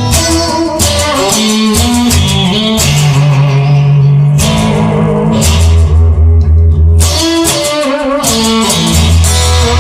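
Instrumental rock-style music with guitar, bass and drums.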